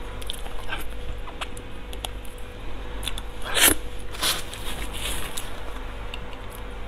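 Close-up mouth sounds of someone eating soft, creamy durian flesh: wet chewing and lip smacking in short scattered bursts, the loudest about three and a half seconds in.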